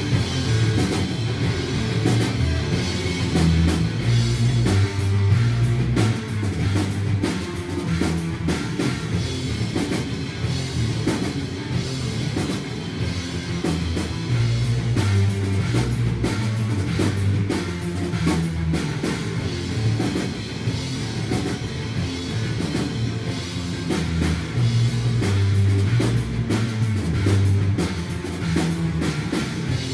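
Rock band playing: electric guitar over a drum kit, with heavy low notes changing in pitch.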